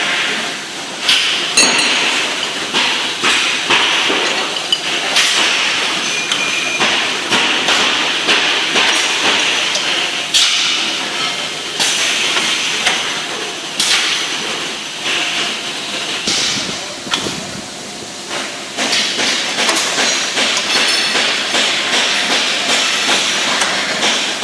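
Stangherlini CNC tube-bending machine working through its bending cycles: a steady hiss with frequent sharp knocks and clanks of metal.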